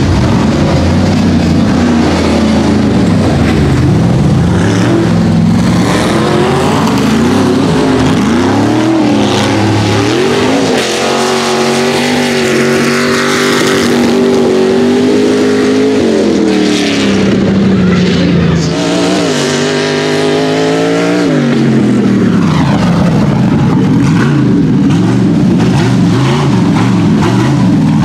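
Rock bouncer buggy's engine revving hard, its pitch climbing and falling with the throttle. Around the middle it holds high revs for several seconds, drops, then climbs again.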